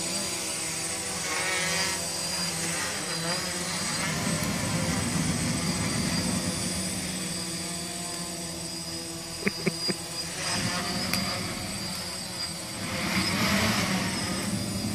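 Small quadcopter drone hovering, its propellers whirring steadily. A few sharp clicks come about nine and a half seconds in. A rushing swell near the end comes as the drone drops low over the fire and its downwash fans the flames and blows up sparks.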